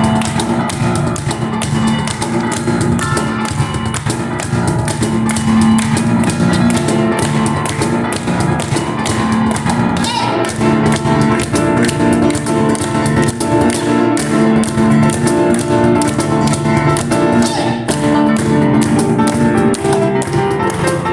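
Live instrumental duo of Kawai piano and cajón playing a fast piece: a busy piano line over rapid, dense cajón strikes.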